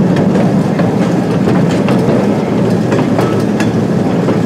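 Small excursion train rolling along the track, heard from aboard an open passenger car: a steady rumble of wheels on rail with irregular sharp clicks as the wheels pass over rail joints.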